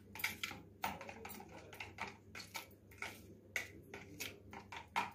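Spoon stirring a thick mayonnaise and chilli garlic sauce in a plastic bowl: irregular clicks and scrapes against the bowl, a few a second, over a faint low hum.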